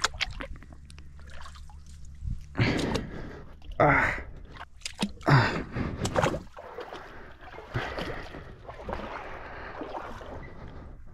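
Bare feet wading through shallow river water among rocks and branches: sloshing, splashing steps, the loudest about two and a half, four and five seconds in, with a sharp breath among them, then softer sloshing.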